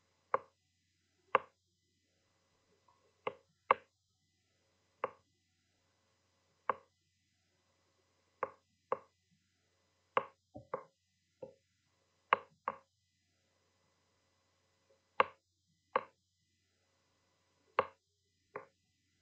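A string of short, sharp taps at an uneven pace, about eighteen of them, roughly one a second, with near silence between.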